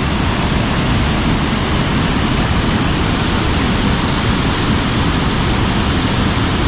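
Waterfall rushing steadily, loud and close.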